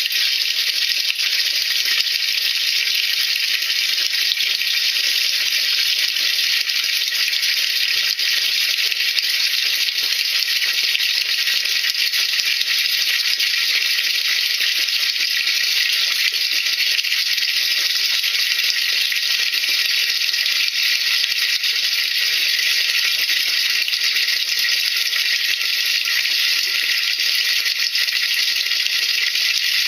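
Steady crackling fizz, like a fine sizzle, of sodium percarbonate solution bubbling in a washing machine's drum.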